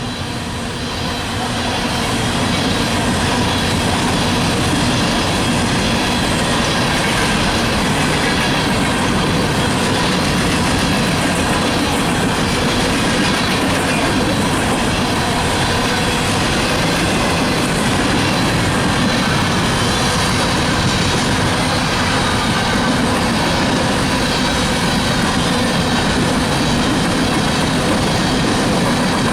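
Coal train's freight cars rolling past on the rails: a steady, loud rumble of steel wheels on track that swells about a second in and then holds.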